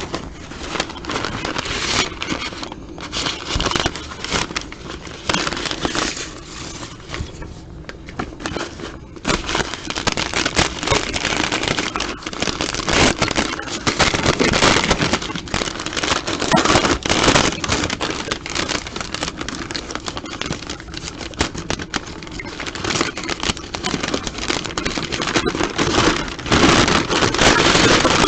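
Plastic packaging crinkling, crackling and scraping as it is handled and pulled open by hand.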